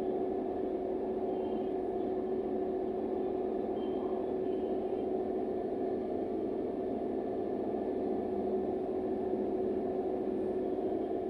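Steady droning hum inside a TransJakarta bus, with one fixed tone held over a dense rumble throughout: the strange sound heard in the bus.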